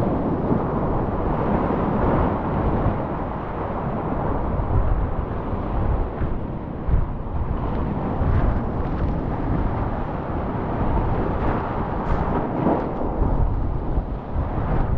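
Steady rush and roar of a glacier-fed alpine river in flood, heard from the seat of a kayak running its rapids, with paddle strokes splashing now and then.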